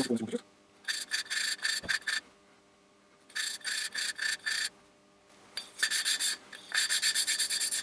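Intake valve of a 139QMB moped cylinder head being lapped into its seat, spun rapidly back and forth on a suction-cup stick: a gritty scraping of valve face on seat in three runs of quick strokes with short pauses between them.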